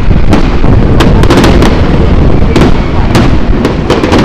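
Aerial fireworks display: shells bursting in quick succession, each a sharp bang or crack, over a constant heavy low rumble. The bangs come in clusters, about a second in and again from past halfway to near the end.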